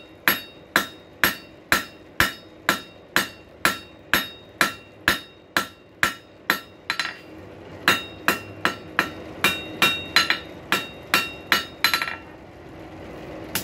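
Hand hammer striking hot rail-spike steel on an anvil while drawing out its thin tip: steady blows about two a second, each with a bright ringing anvil tone. The blows break off briefly about seven seconds in and again near the end.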